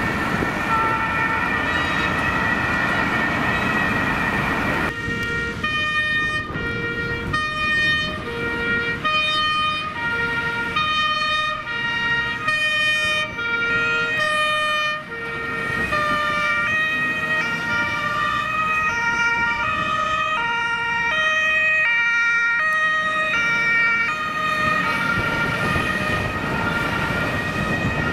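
German two-tone fire-brigade sirens (Martinshorn) sounding on vehicles driving out on an emergency call, over engine and road noise. About five seconds in, the alternating high-low pattern becomes clear, with more than one horn sounding at once, out of step.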